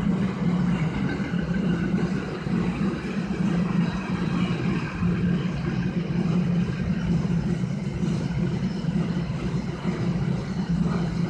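Freight train of empty double-deck car-transporter wagons rolling past at a steady speed: continuous wheel-on-rail running noise with a steady low hum.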